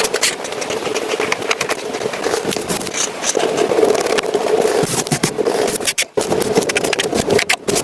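Paper, stickers and packaging being handled: continuous rustling and scraping with many small clicks and taps, over a steady hum.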